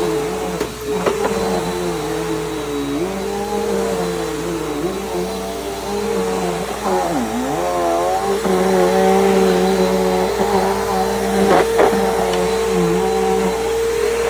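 Bissell PowerGroom bagless upright vacuum running on a rug with a steady motor whine whose pitch dips and recovers over and over as it is pushed back and forth. A couple of sharp clicks come near the start and near the end.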